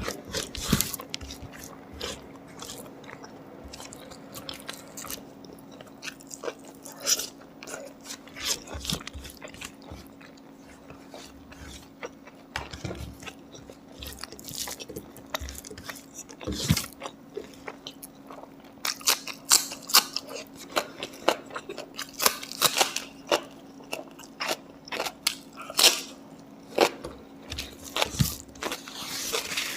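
Close-miked chewing and biting of pork: wet smacks and crunches, sparse at first and coming thick and loud for the last third. A faint steady hum runs underneath.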